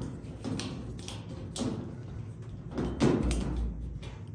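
A few knocks and clunks of a metal clothes-dryer panel being handled and fitted back on, with the loudest knock about three seconds in.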